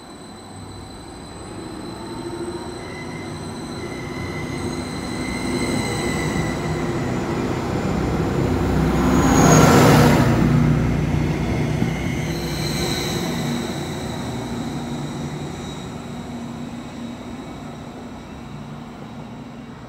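Greater Anglia Class 755 Stadler FLIRT train passing through the platform. Its rumble builds, peaks sharply as it goes by about halfway through, then fades away. High steady whining tones ride over it as it approaches and as it leaves.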